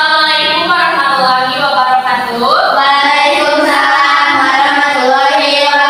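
High voices singing a slow melody with long held notes and a pitch slide upward about two and a half seconds in.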